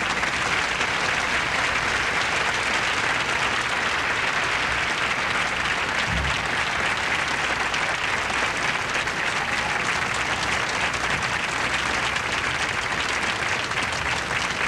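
Studio audience applauding in long, steady applause.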